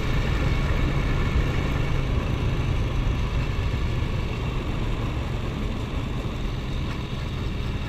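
Motorcycle engine running steadily while cruising, heard from the rider's seat.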